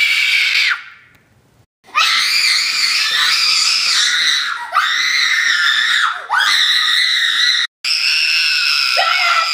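A young woman screaming in fright: a string of long, high-pitched held screams, several ending with the pitch sliding down. There is a brief break about a second in.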